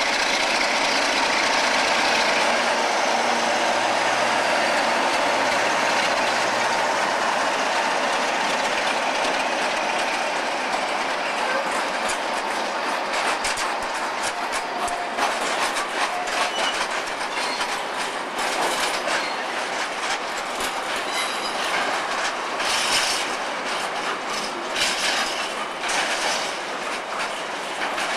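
A Class 47 diesel locomotive hauling a container freight train passes, its steady engine and rail noise loudest over the first several seconds. Then the container wagons roll by, their wheels clicking and knocking over the rail joints in a steady clatter, with a few faint squeals from the wheels.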